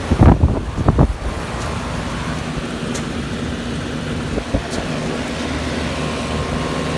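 Central air-conditioner condensing units running: a steady compressor and fan hum. A few loud bumps on the microphone in the first second, and a smaller one about four and a half seconds in.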